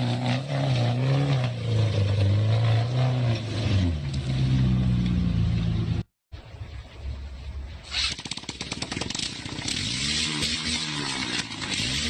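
Pickup truck engine revving hard, its pitch rising and falling as it spins through mud, then falling away about four seconds in. After a brief cutout, a loud hiss sets in, with another engine rising and falling in pitch near the end.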